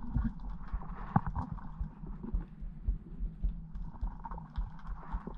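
Muffled underwater sound picked up through a camera housing: irregular dull thumps and knocks over a low hum, with scattered sharp crackling clicks.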